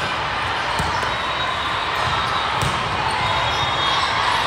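Echoing din of a large hall full of volleyball courts: steady crowd chatter with the smacks and bounces of volleyballs being hit, two sharper hits standing out about a second and two and a half seconds in.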